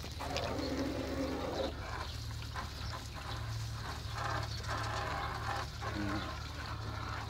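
Water spraying from a garden-hose nozzle into a plastic bucket, over a steady low hum. A distant animal call sounds about four to five seconds in.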